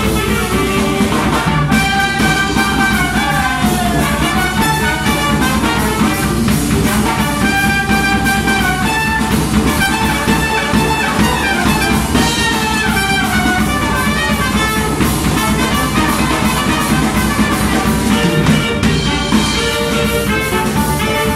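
A small brass band playing a lively Colombian fandango: trumpet, trombone and two saxophones play the melody over a tuba bass line and a drum kit beat.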